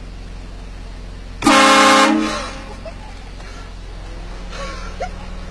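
A train horn sounds one loud blast of several tones together, lasting under a second about a second and a half in, then dies away.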